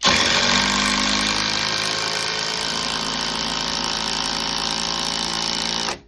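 Skil cordless impact driver running at full trigger for about six seconds, then stopping suddenly.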